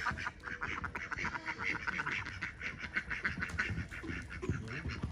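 Domestic ducks quacking in a fast, continuous run of short calls.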